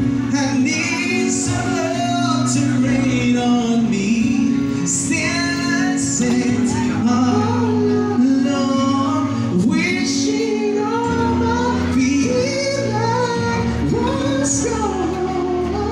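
Live band playing a song with a woman singing lead over sustained keyboard and bass accompaniment.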